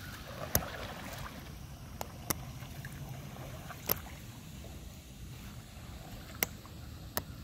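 Kayak paddle strokes on calm water: soft splashes and swirling as the blades dip and pull, with a splashy stretch about a second in. About six sharp knocks are scattered through it.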